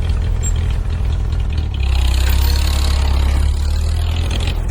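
Tractor engine running steadily, picking up to a louder, harder pull about two seconds in and easing off near the end.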